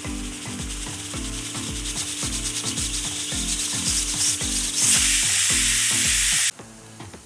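Pressure cooker building up steam, its hiss growing until it lets off a loud whistle of steam about five seconds in that cuts off suddenly. Background music with a steady beat runs underneath.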